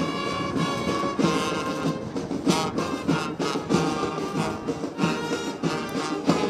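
Military brass band playing, held brass notes over a beat.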